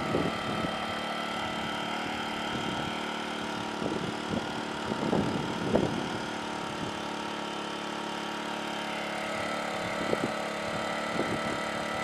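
Small inverter generator engine running at a steady speed, with a few brief irregular bumps near the start, in the middle and near the end.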